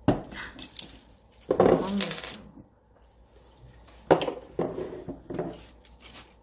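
A metal bottle opener prying the cap off a small glass bottle with a sharp click, followed by glass bottles and a glass mug knocking and clinking as they are handled on the table.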